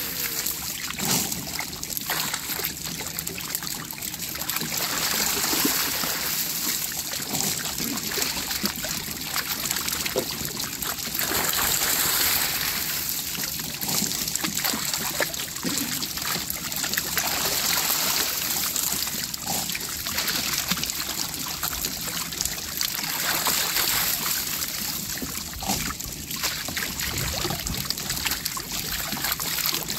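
Water splashing and trickling as a man wading in a fish trap scoops fish with a round hand net, water streaming off the net and fish splashing at the surface.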